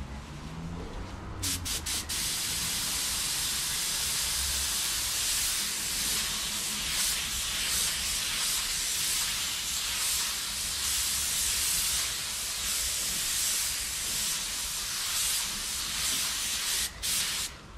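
Compressed-air paint spray gun spraying: a few short trigger blips, then a long steady hiss of air and atomised paint, with a brief break near the end.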